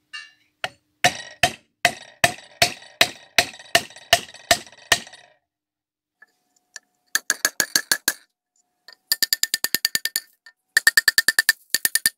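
Hammer strikes on a rusty iron scale clip laid on a wooden board, straightening it, each blow ringing briefly. About a dozen steady blows at two to three a second, then after a pause three quicker runs of lighter, rapid taps.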